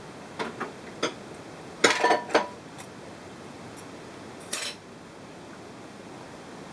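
Kitchenware being handled on a countertop: a few light clicks, then a louder cluster of sharp clinks with a brief ring about two seconds in, and one more clink a couple of seconds later.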